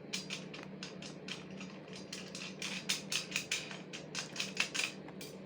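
Small irregular metal clicks and clinks of nuts and bolts being fitted and tightened on a steel chainsaw mill frame, several a second.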